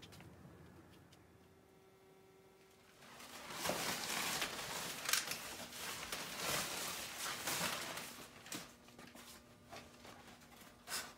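Clear plastic wrap crinkling and rustling as it is pulled off a boxed dishwasher, starting about three seconds in and loudest for the next five seconds, then dying down to scattered softer rustles.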